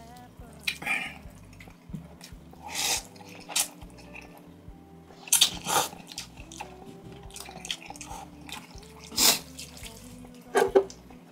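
A person slurping instant noodles and broth in about seven short bursts, over steady background music.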